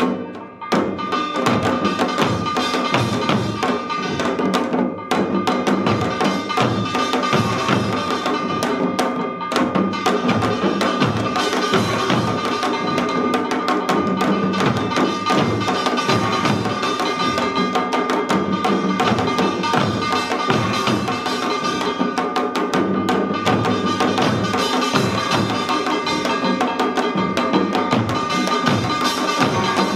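Korean samul nori percussion: an ensemble of janggu hourglass drums playing a fast, dense rhythm together, with a steady ringing tone held over the drumming.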